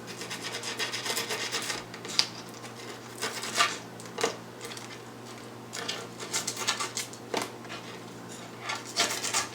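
Blade cutting skateboard grip tape along the deck's edge: irregular short scratchy, rasping strokes, some in quick runs, with pauses between.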